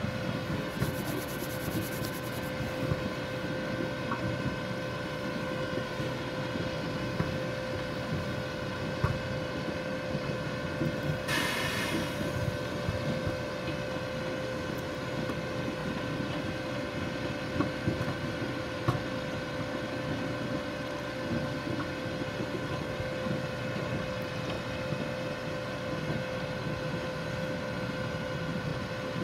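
ROPA sugar beet cleaner-loader running steadily under load, its engine and conveyors giving a constant drone with a steady whine. A short hiss cuts in about eleven seconds in.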